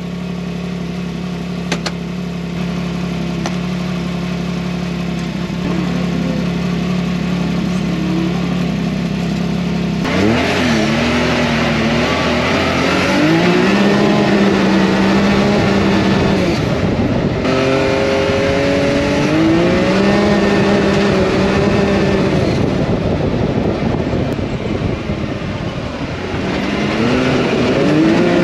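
Can-Am Maverick X3's three-cylinder turbo engine idling steadily for about ten seconds, then pulling away: the engine note climbs and holds several times as the machine drives on, dropping back between pulls.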